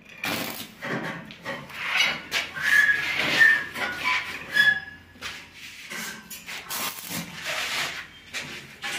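Light metal clicks and scrapes from a hand tool working the rod fittings of a stainless steel railing, with several short high squeaks in the middle.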